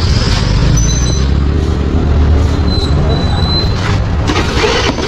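Street noise in a busy market lane: a loud, rough low rumble throughout, a few brief high squeals, and two bursts of hiss near the end.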